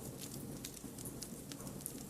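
Campfire of burning firewood: a steady low rumble of flames with scattered sharp crackles and pops.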